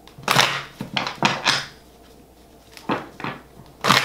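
Tarot cards being shuffled and handled, in about four short rustling bursts.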